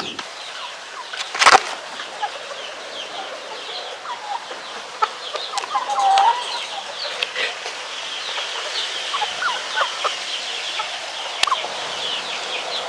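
Chickens clucking, with a stream of short high peeping chirps. A sharp knock about a second and a half in, and a smaller click near the end.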